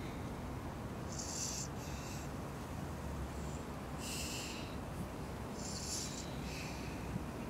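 Breathing with sniffs: about five short hissing breaths or sniffs, each roughly half a second, over a steady low hum.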